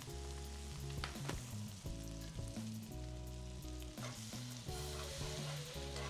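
Butter and flour sizzling in a hot cast iron skillet while a wire whisk stirs them into a roux, over background music with steady low notes that change every second or so.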